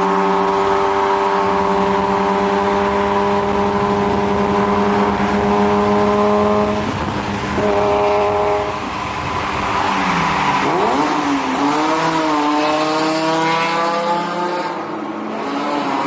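BMW Z4 M's naturally aspirated S54 straight-six exhaust, held at steady revs for several seconds, then the revs drop and climb sharply about ten seconds in before holding steady again.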